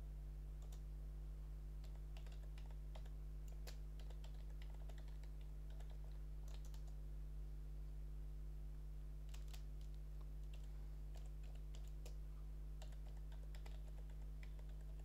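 Keys on a computer keyboard being typed in short irregular runs of faint clicks, over a steady low hum.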